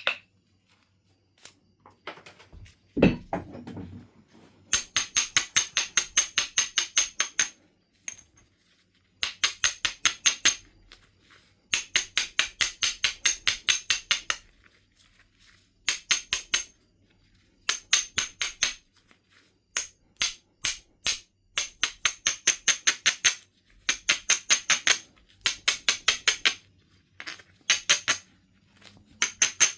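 Coarse abrading stone rubbed back and forth along the edge of a Knife River flint piece, grinding the platforms for flaking: runs of rapid gritty scraping strokes, about six a second, in short groups with pauses between. One heavier knock of stone on stone comes about three seconds in.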